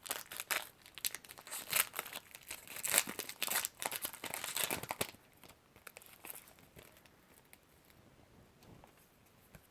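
Foil Pokémon booster pack wrapper being torn open and crinkled for about five seconds, then quieter rustling as it is handled.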